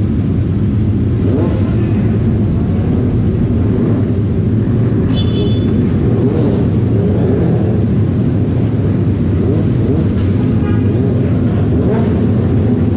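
Several motorcycle engines running at low speed together, a dense, steady exhaust drone, the nearest being a single-cylinder Yamaha R15 fitted with an aftermarket exhaust. Brief high thin tones come in about five and eleven seconds in.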